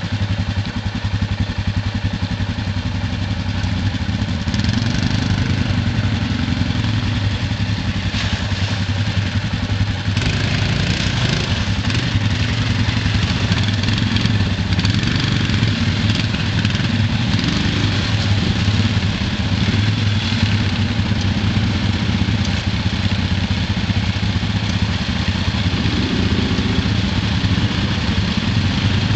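ATV engines running steadily, one idling, with a second quad driven up through mud and water; the engine noise grows louder and rougher from about ten seconds in.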